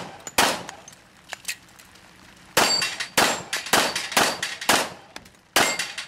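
Pistol shots fired at steel plate targets: a single shot, a lull of about two seconds, then a quick string of shots and one more near the end. Several shots are followed by the short ring of the bullet striking steel.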